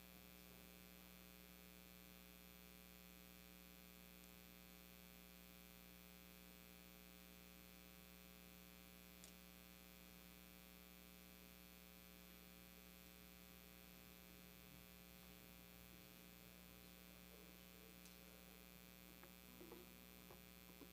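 Near silence: a steady electrical mains hum.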